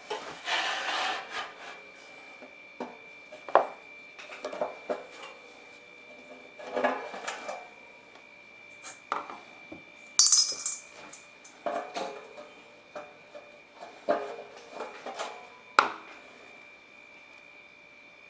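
Irregular clinks, knocks and short scrapes of small metal parts and hand tools being handled on a workbench, with a faint steady high tone behind them.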